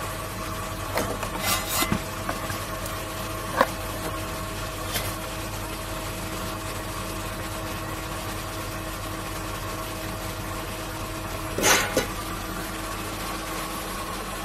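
Steady machine hum made of several even tones, with a few light knocks as a cardboard box of welding wire is handled, and a short scraping rustle about twelve seconds in.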